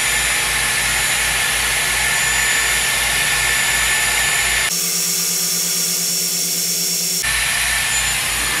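Dyson Airwrap styler running while curling a section of hair: a steady rush of air with a high-pitched motor whine. About halfway through the sound changes for a couple of seconds, with the low hum dropping out, then goes back to how it was.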